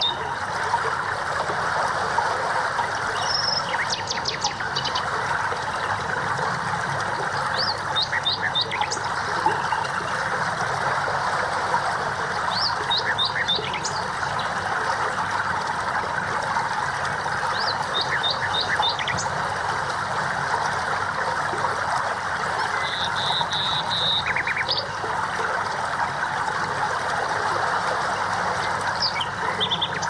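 Songbirds chirping in short runs of three or four quick high notes every few seconds, with one brief held whistle near the middle, over a steady hiss of running water.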